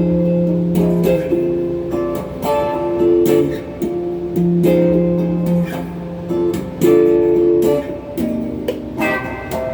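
Electric guitar, a Donner Q1 HSS strat-style, played through a Crate GX30M amp with a phaser pedal and a Klon-clone overdrive in the chain: picked single notes and chords, some held for about a second, others struck in quick succession.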